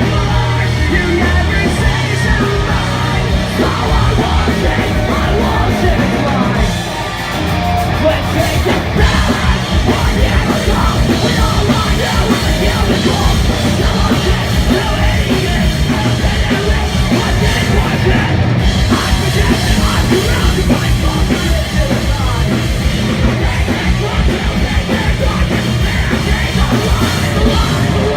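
Live punk rock band playing loudly, with distorted guitars, drum kit and yelled vocals.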